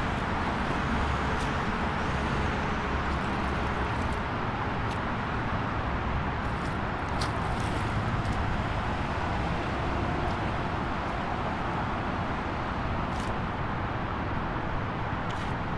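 Steady highway traffic noise: a continuous wash of passing vehicles and tyres on the road, with a few faint short ticks here and there.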